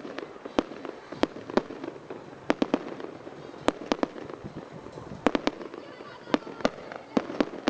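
Fireworks salute: a rapid, irregular series of sharp firework bangs, some coming in quick pairs and triplets, over a continuous crackle.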